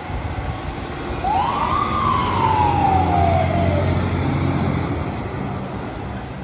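An emergency vehicle's siren sounds once, rising quickly and then winding down slowly over about two and a half seconds. Beneath it runs the low, steady sound of a fire engine pulling away, loudest in the middle.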